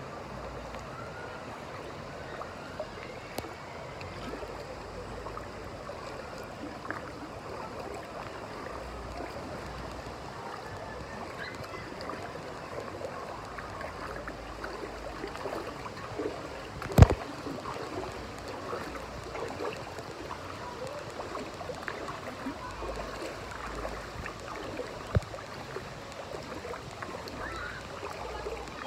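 Lazy-river water flowing and lapping close by as a steady wash, with one sharp knock about seventeen seconds in and a lighter one later.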